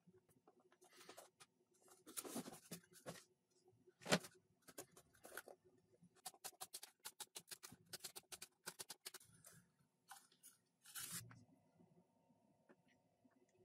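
Light clicks and taps of wooden popsicle sticks being handled, pressed together and set down on a wooden tabletop, with one sharper knock about four seconds in, a quick run of small clicks in the middle and a short scrape near the end.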